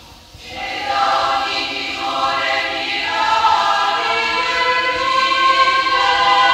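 Choir of women's voices in three equal parts singing a sacred hymn, coming in about half a second in after a pause and growing louder.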